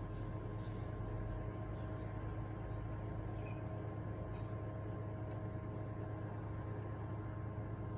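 A steady low hum with a few constant higher tones over it, unchanging throughout, and a few faint short high chirps in the first half.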